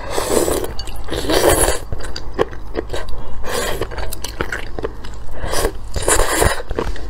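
Noodles being slurped up from a bowl of broth in several loud sucking slurps. Wet chewing and mouth clicks fall between the slurps.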